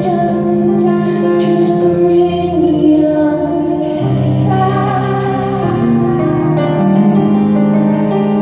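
Live concert music recorded on a phone: a woman singing over sustained keyboard accompaniment.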